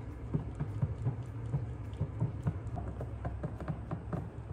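Black tint being mixed into white house paint in a container: irregular light taps and clicks of a stirrer against the container, over a steady low hum.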